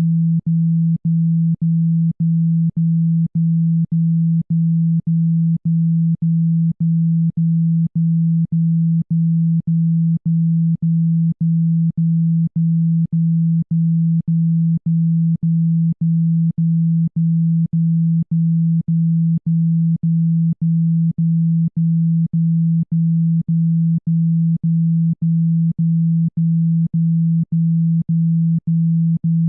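Speaker-cleaning tone: a single low, steady hum pulsed on and off in an even rhythm, a little under twice a second, with a faint click at each break. It is played loud to shake water and dust out of a phone speaker.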